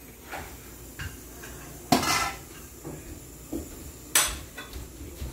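A wooden spoon stirring a large pot of crab and dumplings in coconut sauce, knocking against the pot several times. Two of the knocks, about two seconds apart, are louder than the rest.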